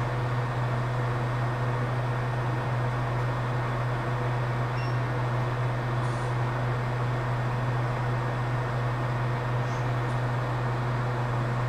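Hot air rework station blowing steadily while reflowing a small filter onto the phone's logic board: an even rush of air over a steady low hum.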